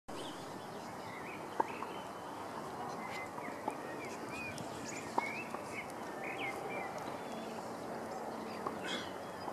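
Small birds chirping in short calls over a steady outdoor background hiss, with a few isolated sharp clicks.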